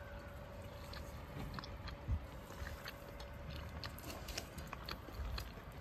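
People eating at a table: chewing, with scattered small clicks of cutlery on plates and a steel pan, over a low rumble.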